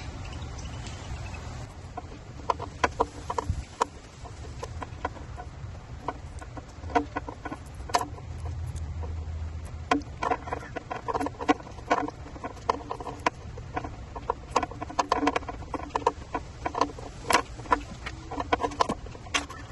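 Small clicks and taps of e-bike wiring connectors being handled, with a bird's short pitched calls coming in runs several times.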